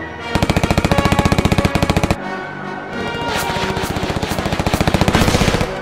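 Two long bursts of rapid machine-gun fire, the second with bullet impacts and growing louder before cutting off, over orchestral background music.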